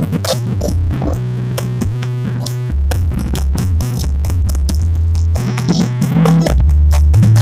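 Loud electronic dance music with synthesizer, drum machine and heavy held bass notes, played through a large 'horeg' sound system under test.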